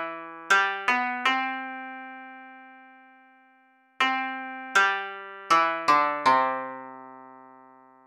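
Background music on a keyboard with a piano-like tone: a run of a few single notes that rings out and fades, then a second run of about five notes about four seconds in, again left to die away.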